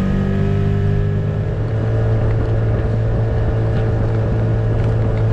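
Outboard motor of a small inflatable boat running under way, a steady drone whose pitch shifts slightly in the first second or two and then holds, with wind noise on the microphone.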